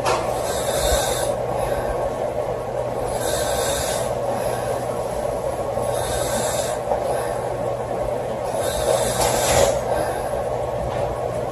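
A sleeping girl snoring, with airy, hissy breaths coming about every two and a half seconds over a steady low hum.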